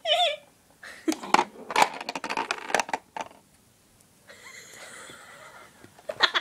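A girl's short vocal exclamations and laughter, mixed with a quick run of sharp plastic clicks and rattles from a handheld toy being handled.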